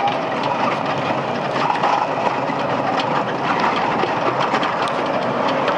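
Steady rattling and running noise of a vehicle in motion, heard from on board, with frequent small clicks and knocks.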